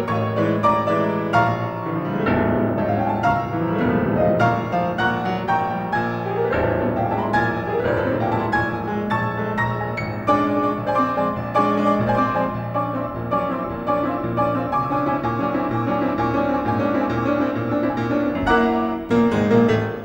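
Solo piano playing classical music, with rippling running passages in the first part and dense chords throughout.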